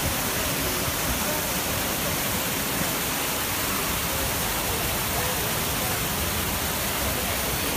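Water of the Trevi Fountain cascading over its travertine rocks into the basin: a steady, unbroken rush, with faint voices in the background.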